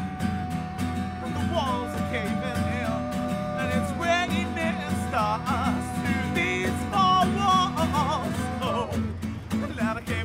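A band playing acoustic music: several acoustic guitars strummed, an acoustic bass guitar and a hand drum, with two or three voices singing long held notes in harmony and wavering runs. The voices drop out briefly near the end while the guitars carry on.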